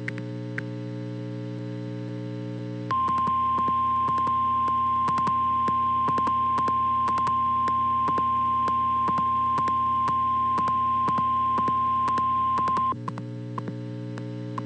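A steady synthesizer drone. About three seconds in, a single steady high-pitched alarm tone starts, holds for about ten seconds and cuts off: the 1050 Hz weather radio warning alarm tone that heads a National Weather Service warning. Regular faint ticks run under the tone.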